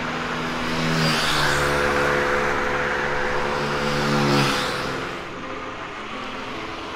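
A motor vehicle passing on the highway. Its engine hum and tyre noise build, are loudest a little after four seconds in, then fade.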